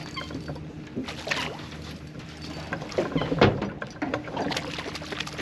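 Knocks and scuffs on a small fishing boat over a low steady hum, with the loudest thump about three and a half seconds in.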